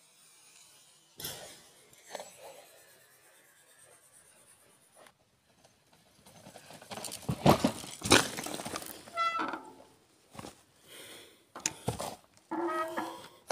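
Phone being picked up and handled: close rustling, scraping and knocks on the microphone in the second half, with a few short pitched sounds near the end. Before that, low background with a single bump about a second in.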